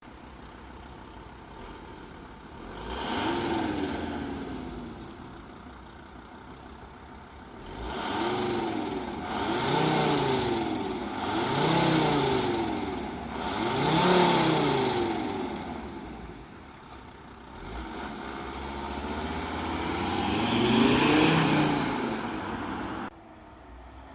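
Audi 2.5 TDI (AEL) inline five-cylinder turbodiesel on its stock exhaust, idling and revved up several times: each rev rises and falls back to idle, four quick ones close together in the middle and a slower, longer one later. The sound drops off suddenly near the end.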